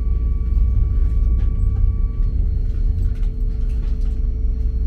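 Deutsche Bahn ICE 3 electric high-speed train running, a steady low rumble with faint steady hums over it; one higher hum stops a little over two seconds in.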